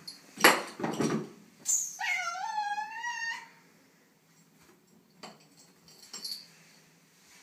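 Tortoiseshell cat giving one drawn-out meow that rises and then levels off, lasting about a second and a half, after two loud scratchy scuffs near the start. A few faint ticks follow.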